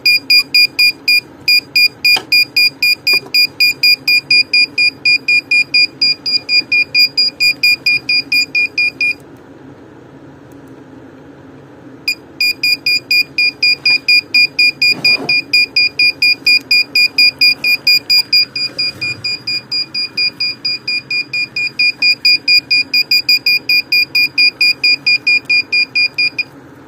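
GP-Pointer pinpointer (Chinese Garrett Pro-Pointer copy) beeping from its built-in buzzer: loud, high, even beeps about three a second, which stop for about three seconds roughly a third of the way in and then start again. The repaired pinpointer is switched on and working, its alarm pulsing as its search coil is held near metal.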